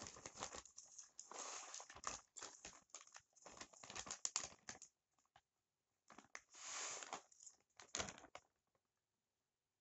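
Potting soil poured from a plastic bag into a terracotta pot, the bag crinkling and the soil rustling in a run of uneven bursts. It stops about eight and a half seconds in.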